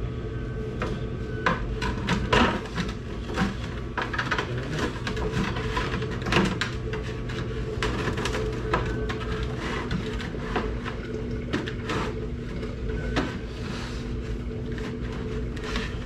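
Copper tubing clinking, knocking and scraping against a plastic pail as it is worked into coils inside it, in many irregular taps. A steady low electrical hum runs underneath.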